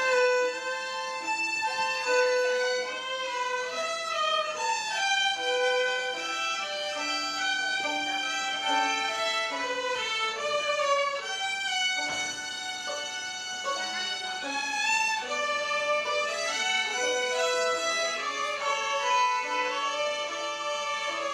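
A children's violin ensemble playing a melody together, bowed notes held and moving from one pitch to the next without a break.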